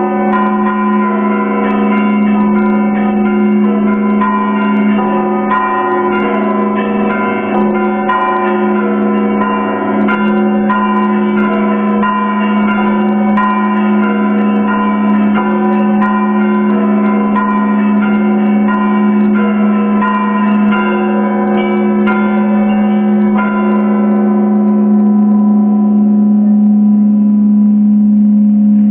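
Russian Orthodox monastery bells rung in a peal: quick strikes of the smaller bells, about two a second, over a steady low hum. The strikes stop about 24 seconds in and the bells ring on.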